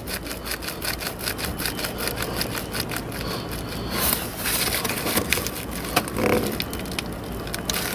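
Plastic heater core hose coupler and rubber hose on a Mk1 Audi TT creaking and rubbing as a gloved hand wiggles them side to side to work the stuck coupler off its pipe. There is a quick run of scraping clicks for the first few seconds, then a rougher rubbing.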